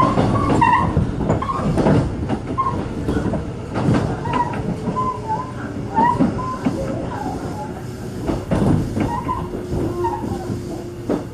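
Kintetsu train running on the rails: a steady low rumble with a knock from the wheels every second or two.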